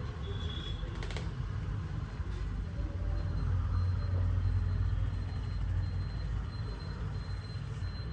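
Low rumble of street traffic, swelling for a few seconds in the middle, with one sharp click about a second in.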